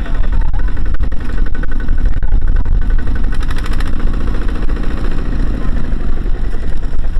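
Single-cylinder diesel engine of a two-wheel walking tractor running loud and steady, labouring to pull a trailer loaded with rice sacks out of deep mud.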